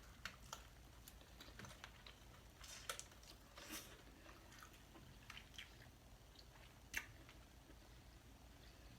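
A person chewing seafood close to the microphone: quiet wet chewing and mouth smacks with scattered soft clicks, one sharper click about seven seconds in.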